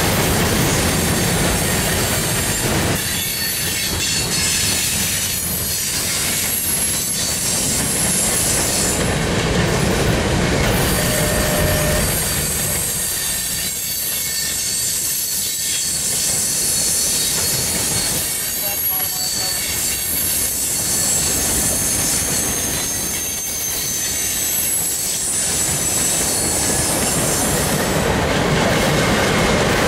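Freight cars of a mixed CSX train rolling steadily past close by: a continuous rumble of wheels on rail, swelling and easing a little as the cars go by. A thin, high-pitched wheel squeal runs over it.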